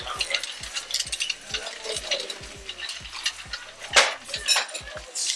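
Shopping cart rattling and clinking as it is pushed along, with scattered clicks and one louder clack about four seconds in.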